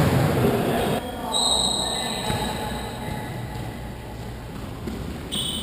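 Indoor five-a-side football on a sports-hall floor. A burst of noise in the first second, then high squeaks of trainers on the floor about a second in and again near the end, with the ball thudding, echoing in the large hall.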